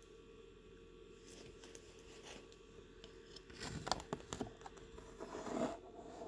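Irregular crackling, crinkling and scraping noises, a run of small clicks and rustles that grows loudest about four seconds in and again near the end.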